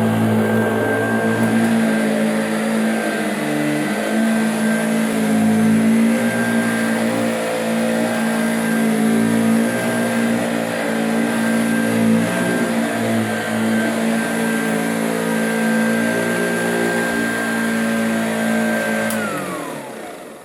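1974 Hoover Junior Dirt Searcher upright vacuum cleaner running steadily with a high motor whine. It is switched off about 19 seconds in, and the motor winds down, its whine falling in pitch and fading out.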